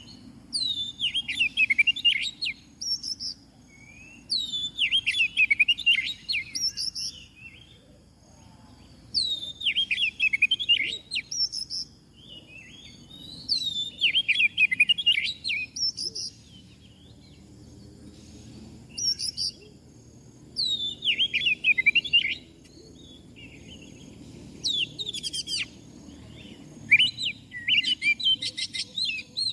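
Oriental magpie-robin (kacer) singing in repeated bursts of fast, varied whistled phrases, about eight bursts each lasting one to three seconds with short pauses between.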